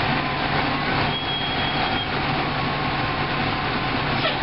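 Diesel engine of a Case IH 4530 dry-fertilizer floater running steadily as the big machine rolls slowly past close by.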